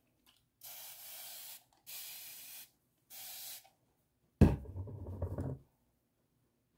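Spray bottle of water misted onto hair in three short hissing sprays. About four seconds in, a louder thump followed by a second of rustling handling noise.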